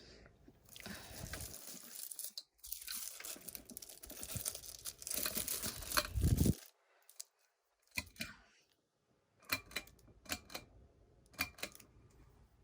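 Crinkling and rustling of packaging being handled for about six seconds, followed after a pause by a handful of sharp clicks.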